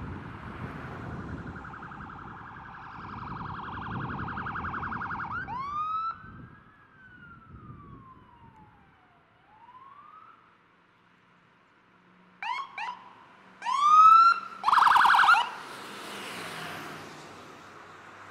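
Electronic sirens of responding fire department emergency vehicles, switching tones: a rapid warble, a couple of short chirps, then a slow wail that falls and rises again. Later come short chirps, a loud whoop and a loud fast warble as the vehicles pass close, followed by the rush of the vehicles going by.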